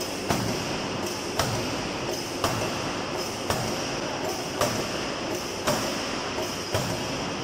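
Open-die forging hammer striking a hot steel workpiece, a heavy blow about once a second, over a steady background of machine noise.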